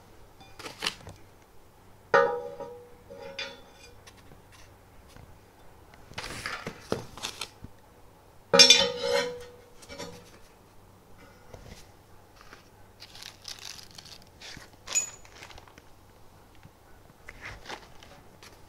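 Aluminium 3D-printer frame parts and rods knocking together and being set down. Two loud clanks, about two seconds in and near the middle, ring on briefly at a metallic pitch, with plastic parts bags rustling in between.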